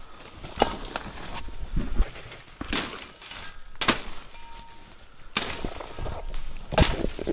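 Footsteps and bodies pushing through dense undergrowth: dry leaf litter and twigs crackling and snapping in irregular bursts, over a low rumble.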